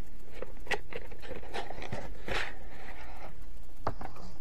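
A few light clicks and knocks, with a short rustle about two seconds in, from a plastic watercolor case being handled.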